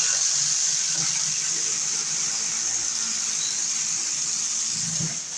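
Cordless drill boring a wire hole down through the wooden bottom plate at the floor, the bit cutting steadily through the wood with a high, hissing whir.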